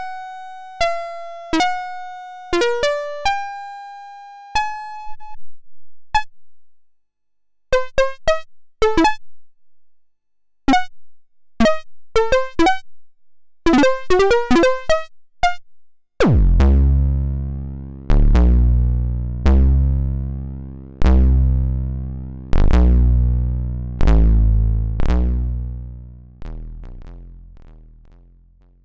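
Modular synthesizer patch playing. Short plucked synth notes jump about in pitch, thinning into sparse pinged blips. From about halfway, a deep, buzzy bass note is struck roughly every second and a half, each one decaying, and the whole fades out near the end.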